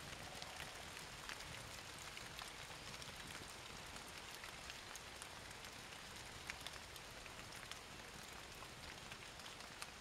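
Light rain falling: a faint, even hiss scattered with sharp ticks of individual drops.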